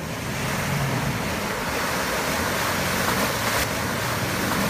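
Toyota 4Runner SUV's engine running steadily as it crawls through a muddy, water-filled pit, under a steady rushing noise.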